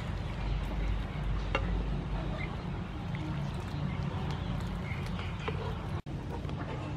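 Pot of water boiling as fish balls are scooped out with a wire mesh strainer and wooden spoon, with a few light clicks of spoon on strainer. Faint animal calls in the background.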